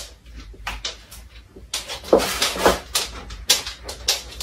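A dog making a few short, whiny vocal sounds about two to three seconds in, among scattered light clicks and knocks.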